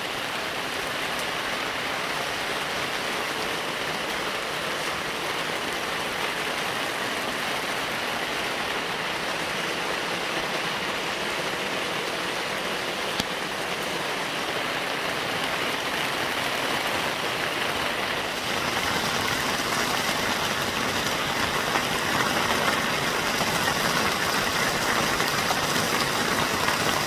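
Steady rain falling, an even hiss that grows somewhat louder about two-thirds of the way through, with a single brief click near the middle.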